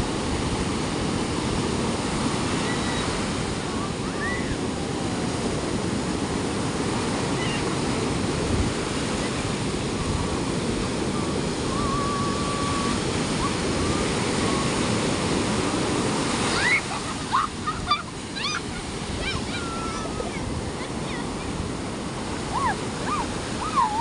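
Ocean surf breaking and washing up a shallow sandy beach, a steady rushing wash. About two-thirds of the way through the rush eases and several short high-pitched cries sound over it.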